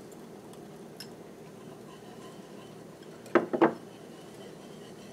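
A wire whisk and spoon clinking against a stainless saucepan as slurry is whisked into a pomegranate glaze to thicken it. There is a light click about a second in, then a quick burst of two or three sharp clinks about three and a half seconds in.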